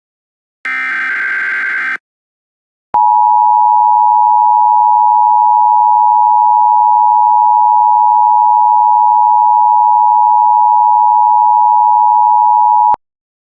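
Emergency Alert System signal: a buzzy digital data burst of the SAME header ends about two seconds in. After a one-second gap, the two-tone EAS attention signal sounds steadily for about ten seconds and then cuts off.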